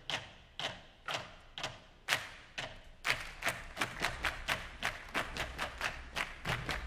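Drum corps clapping hands in unison: sharp single claps about half a second apart, then a quicker clapping rhythm of about four a second from around three seconds in.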